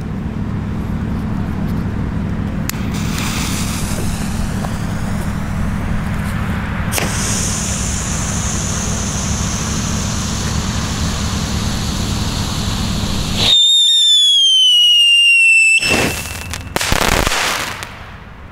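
A Funke Höllenfeuer ground firework burning with a steady hiss. Near the end comes a loud whistle that falls in pitch for about two seconds, then a short burst of crackling.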